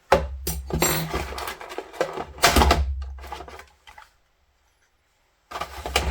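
Handling noise from a nail drill machine and its parts being picked up and moved on a work surface: irregular knocks, clatter and scraping, which stops for about a second and a half and then starts again near the end.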